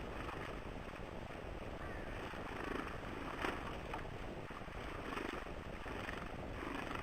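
Birds moving about a feeder: soft short rustles every second or so and one sharp tap about three and a half seconds in, over a steady outdoor hiss.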